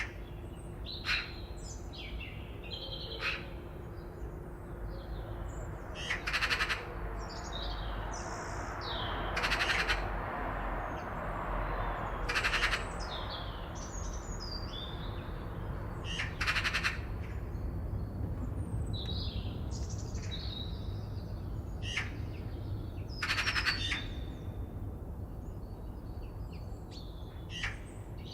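Forest birds singing and chirping in short gliding phrases, with loud harsh rasping calls every few seconds, over a steady low background rumble.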